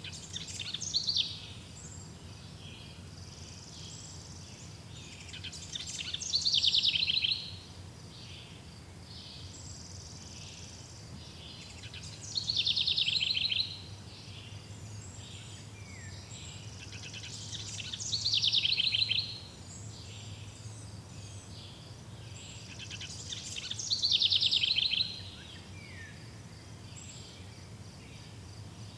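A songbird repeating the same loud song phrase about every six seconds, each phrase a quick descending trill lasting about a second and a half, over faint steady insect chirring.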